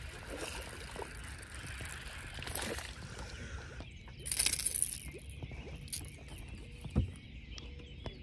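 Water splashing as a hooked bass is brought up to the surface, with a louder burst of splashing about halfway through and a sharp knock near the end.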